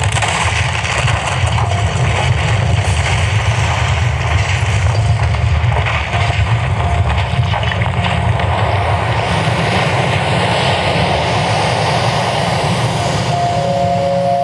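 Soundtrack of an outdoor sound and light show played over loudspeakers: a loud, steady low rumble under a noisy wash, with a faint held tone entering about six seconds in and a stronger one near the end.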